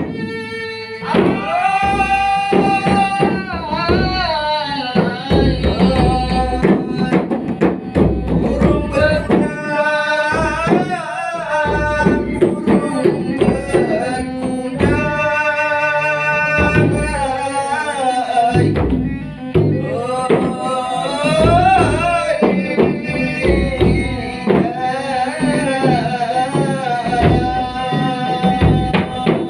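Traditional Malay dendang song: a voice singing long, ornamented held lines over hand-drum percussion and instrumental accompaniment.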